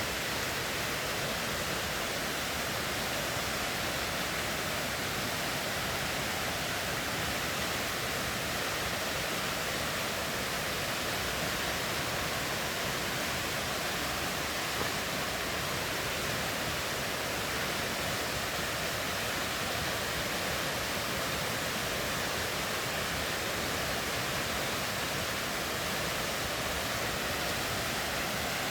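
River water rushing, a steady, even hiss with no let-up.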